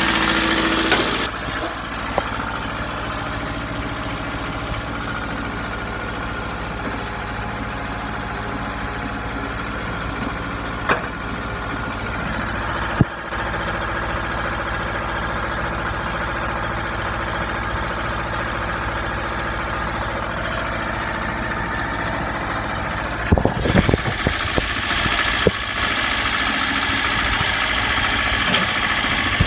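Ford 1100 compact tractor's two-cylinder diesel engine idling steadily, a little louder from about halfway through. There are a few handling thumps near the end.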